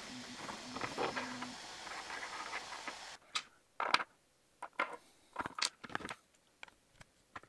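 Steady hiss for about three seconds, then a run of separate light clicks and knocks as a 3D-printed plastic clamp block and Irwin Quick-Grip clamp parts are handled and set down on a table.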